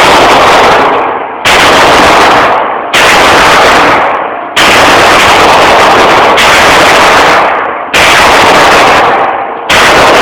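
Glock 22 pistol in .40 S&W fired at a steady pace, roughly one shot every second and a half. Each shot is loud enough to overload the microphone and rings on until nearly the next one.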